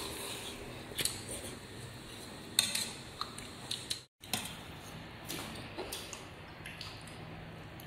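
A metal ladle and chopsticks clinking against a steel soup pot and ceramic bowls as food is served, with a few sharp clinks over a faint low hum.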